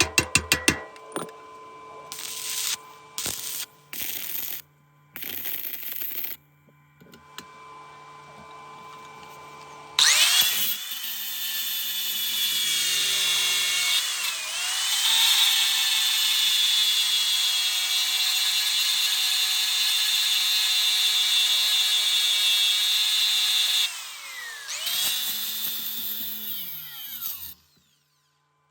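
Electric angle grinder starting about ten seconds in and running for some fourteen seconds, its pitch dipping when it bites into the metal, then spinning down twice near the end. Before it come scattered clicks and a few short hissing bursts.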